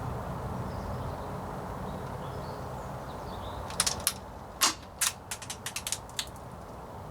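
A quick run of about a dozen sharp plastic clicks and clacks from handling the ASG MK23 green-gas airsoft pistol, starting about four seconds in and lasting about two and a half seconds, two of them louder than the rest.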